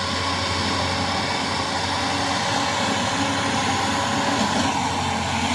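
Kubota rice combine harvester running steadily while it cuts and threshes lodged rice: an even engine hum with the clatter of the cutter and threshing mechanism.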